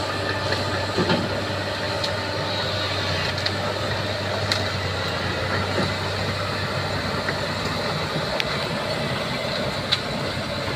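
Bulldozer's diesel engine running steadily, with a few sharp metallic clanks.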